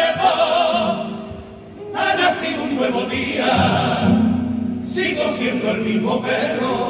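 Male carnival comparsa choir singing in harmony, in sung phrases broken by short breaths about a second and a half in and near five seconds in.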